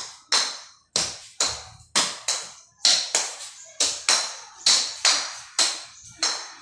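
A light ball struck again and again with a hard plastic toy paddle to keep it in the air: sharp taps at about two to three a second, each with a short ring.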